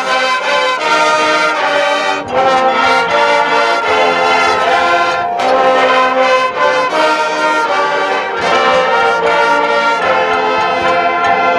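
High school marching band's brass section playing loud held chords, the notes changing every second or so.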